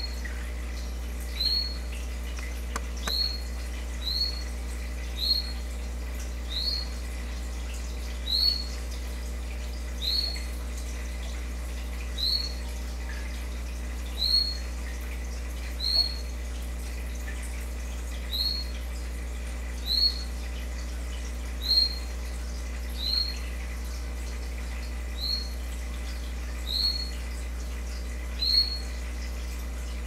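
A downy woodpecker gives short, high, sharp calls, one every second or two, over a steady low hum.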